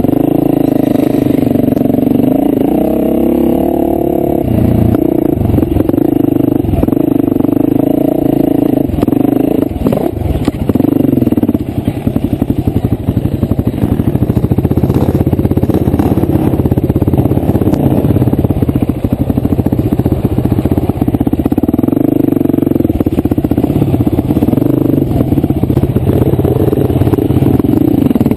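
Off-road enduro motorcycle engine running close by, its pitch rising and falling as the throttle is blipped.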